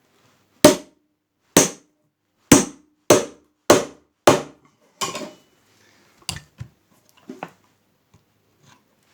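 A hammer striking metal on the Lister D radiator: about seven hard, ringing blows, then a few lighter knocks.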